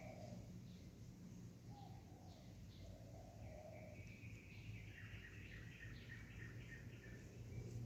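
Faint birds calling in the background: a few short low coos, like a dove's, in the first few seconds, then a high chirping trill from about four to six seconds in, over a steady low hum.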